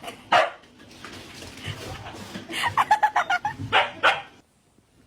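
A dog barking: a sharp bark near the start, then a quick run of short yips past the middle and another bark.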